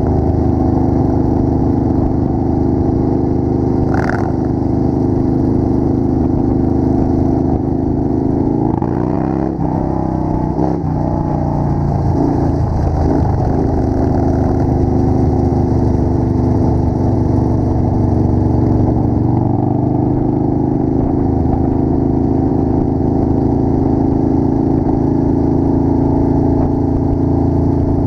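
Motorcycle engine running steadily at road speed, heard from the rider's helmet camera with wind rush. The engine pitch dips and rises between about nine and thirteen seconds in.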